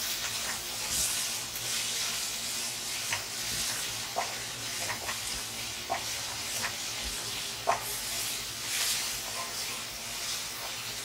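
Chopped vegetables sizzling in oil in a hot steel wok while a wooden spatula stirs and tosses them, the hiss swelling with each stroke. A few short knocks of the spatula against the wok come through, the sharpest a little before the end.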